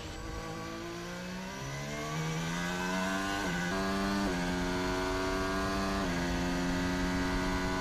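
Formula 1 car's 1.6-litre turbocharged V6 hybrid engine heard from the onboard camera, running hard. Its pitch climbs from about two seconds in, then holds nearly steady, broken by brief steps at gear changes around the middle and again near the end.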